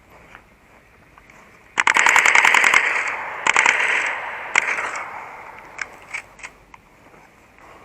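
Airsoft guns firing on full auto: a rapid burst of about a second, a second shorter burst, one single shot, then a few scattered shots, with a smear after the loud bursts.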